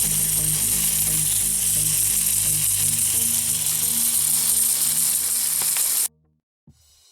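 A loud, steady hiss like static or frying over low background music notes, cutting off suddenly about six seconds in.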